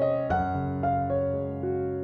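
Background piano music: a slow melody of single notes, each fading, over held low notes.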